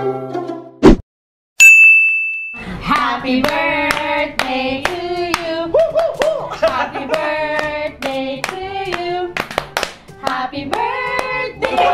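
A short bell-like ding about two seconds in, then a group of people singing a birthday song together while clapping their hands.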